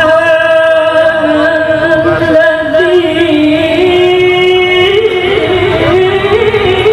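A woman reciting the Qur'an in the melodic tilawah style into a microphone, holding long sustained notes with small wavering ornaments, the pitch stepping higher over the last few seconds.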